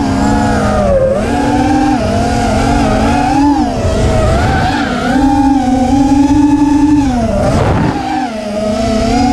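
Brushless motors and propellers of an Armattan Chameleon FPV quadcopter (Cobra 2205 2500KV motors) whining, heard from the onboard camera. The pitch rises and falls with the throttle several times, dropping sharply about three quarters of the way through and climbing back.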